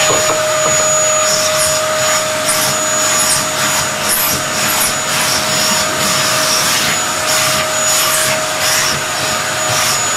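Vacuum cleaner running with a steady whine as its brush nozzle is stroked over a cat's fur, giving repeated short hissing swishes of air.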